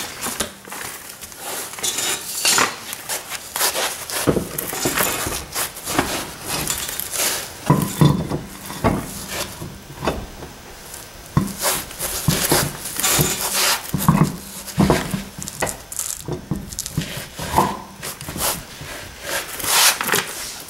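Irregular metallic clinks and knocks as a car wheel is hung on the hub and its lug nuts are threaded on by hand, with a few heavier thumps among them.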